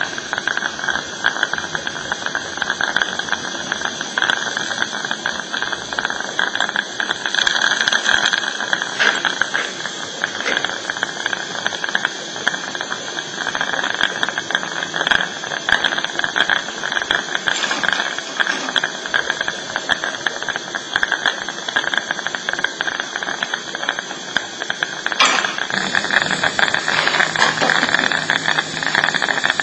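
A steady hiss with scattered faint clicks and rattles, changing slightly about twenty-five seconds in.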